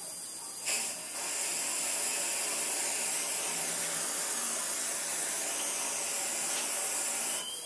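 Oxy-acetylene welding torch: a short burst about a second in, then a steady, loud gas hiss as the flame burns with oxygen mixed in, cutting off suddenly near the end.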